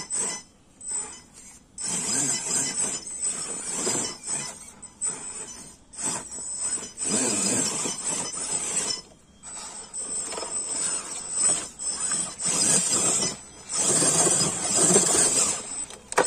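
Radio-controlled scale crawler's electric motor and geared drivetrain whirring in several bursts of throttle, each a few seconds long, as it climbs a steep dirt and rock rut.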